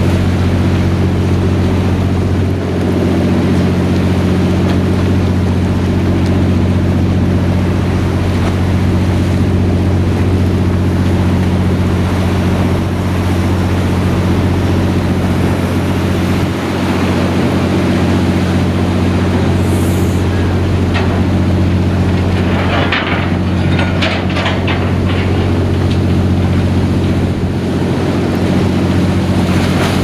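A boat's engine running steadily with a low, even hum, while seawater rushes over the hull of a sinking steel tugboat. A few louder splashes come about three-quarters of the way through as the tug tips under.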